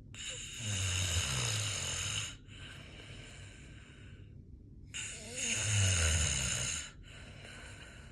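Snoring: two long, low-pitched snores about five seconds apart, each lasting about two seconds, with quieter breaths out between them.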